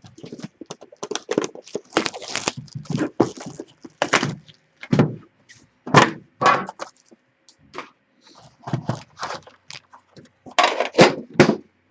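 Irregular knocks, clicks and crackles of a metal hockey card tin and its foil packs being handled, opened and pulled apart by hand.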